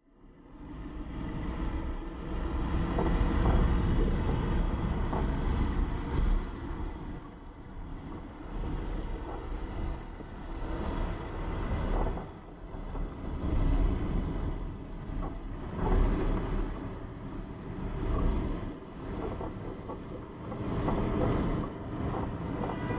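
A vehicle driving along a road: a low rumble of tyres and engine with wind noise, swelling and easing every few seconds.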